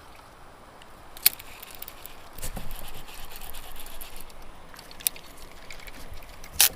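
Scraping and handling noise from a wriggling fish and gear on a kayak, with three sharp clicks or knocks, the loudest near the end.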